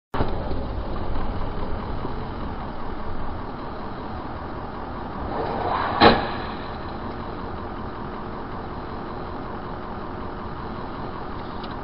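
Dashcam recording of car road and engine noise, then about six seconds in a single loud crash as the car collides with an SUV that has come across its path. After the impact a steady, quieter rumble of the stopped car carries on.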